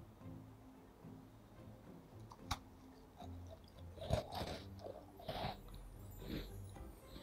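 Crumbly piped butter cookie being bitten and chewed: a sharp click, then several short crunches from about four seconds in.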